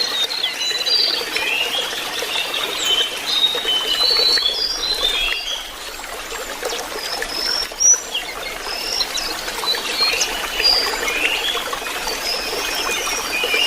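Lesser shortwing (jongkangan) song: a continuous, rambling run of quick, high twittering and whistled notes. It plays over a steady trickling-water background.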